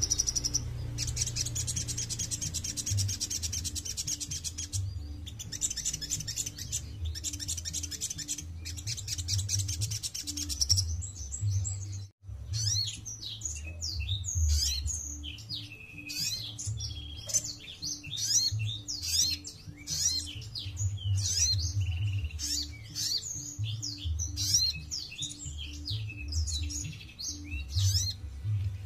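Brown-throated sunbird (sogon) calling: bursts of rapid, high trilling for about the first ten seconds, then, after a brief break about twelve seconds in, a run of quick, varied sharp chirps and twitters.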